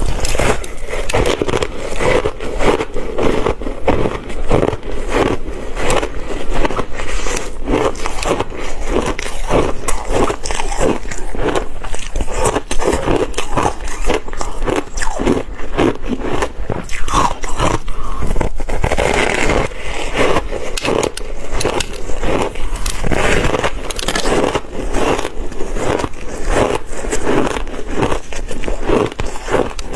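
Close-up crunching of ice being bitten and chewed: dense, continuous cracking and crackling with no pauses.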